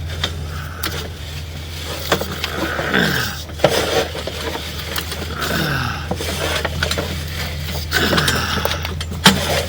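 Sewer inspection camera and its push cable being fed along a rough old cast-iron drain line: scraping and clattering with scattered knocks, and three falling sweeps, over a steady low hum.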